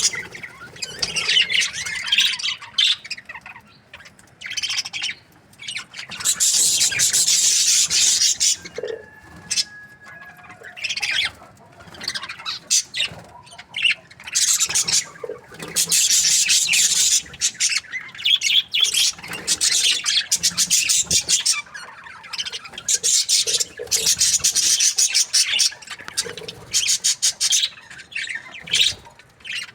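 Budgerigar chirping and chattering in repeated high-pitched bursts of one to a few seconds each, with short pauses between.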